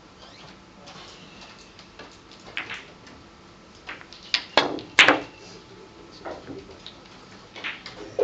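Billiard balls knocking together on a keglebillard table: a few sharp clicks, the loudest cluster about four to five seconds in, then another click near the end.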